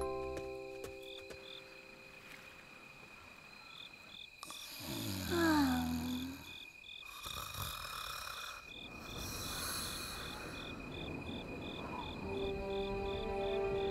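Cartoon night ambience of crickets chirping in a steady, regular pulse. In the middle a man snores in three long breaths, the first with a falling groan. A low held tone comes in near the end.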